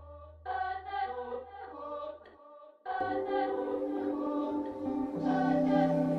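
Background music with a choir-like sound: short sung notes over a low hum, a brief break about two and a half seconds in, then held chords, with a lower note joining near the end.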